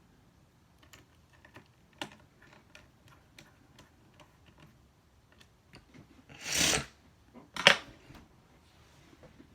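Small clicks and taps of hands and tools working on a laptop's display assembly. About six and a half seconds in there is a brief scrape, and about a second later a sharp clack, the loudest sound.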